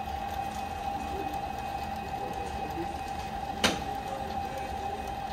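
Plasmapheresis machine running during a donation, its centrifuge and pumps making a steady mechanical hum with a constant tone, and one sharp click a little over halfway through.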